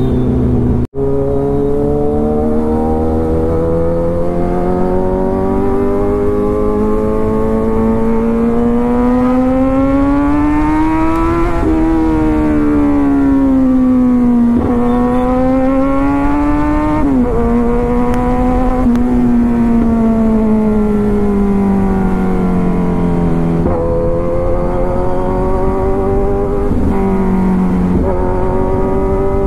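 Kawasaki Ninja 1000's inline-four engine heard from the saddle while riding. Its pitch climbs slowly as it pulls through a gear, drops suddenly at gear changes, and rises and falls with the throttle over steady wind noise. The sound cuts out for an instant about a second in.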